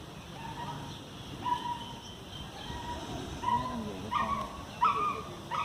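A dog whining: a run of short, high-pitched whimpers that come faster and louder toward the end.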